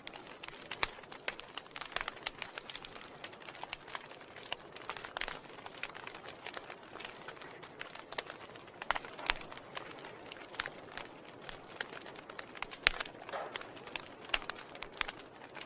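Wood fire crackling in a fireplace: irregular sharp pops and snaps from the burning logs over a soft hiss, with a louder pop about thirteen seconds in.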